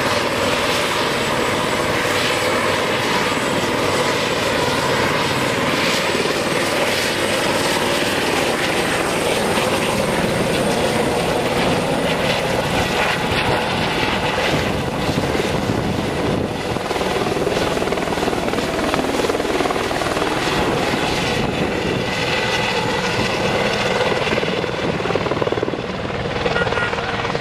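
A light helicopter's turbine and rotor running loud and steady at takeoff power as it lifts off, with a high steady whine over the rotor noise.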